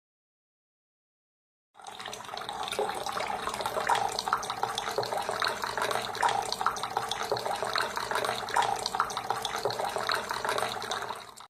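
Silent for the first couple of seconds, then the steady din of a crowded dining hall: spoons and forks clinking and scraping on plates amid a general hubbub.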